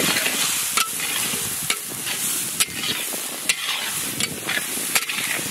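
Shredded cabbage, peas, beans and carrot sizzling as they are stir-fried in a large metal wok, the spatula scraping through them and knocking against the pan roughly once a second.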